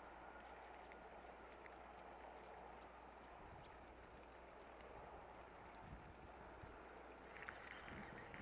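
Near silence: faint outdoor background hiss with a faint, steady high trill, and a few faint ticks near the end.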